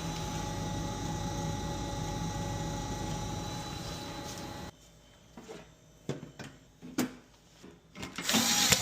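A steady machine hum with several fixed tones, which cuts off abruptly about halfway through. Then scattered clicks and knocks, and a short loud rustle near the end.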